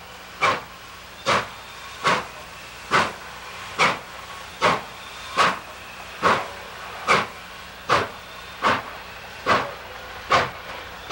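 Exhaust of C&O 2716, a 2-8-4 Berkshire steam locomotive, chuffing at a slow, even beat of a little over one chuff a second as it works a train at low speed, over a steady hiss of steam.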